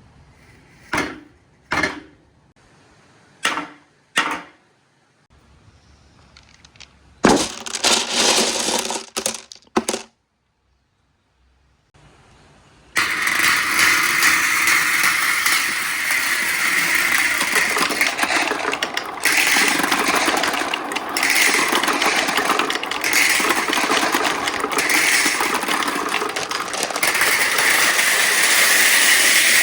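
Marbles rolling down a marble run track: four short single rolls in the first few seconds, then a few seconds of rattling clatter, a brief silence, and from about thirteen seconds in a steady, loud rolling rush of many marbles at once.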